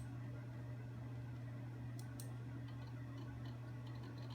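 A few sharp computer mouse clicks, including a quick double click about two seconds in, over a steady low hum.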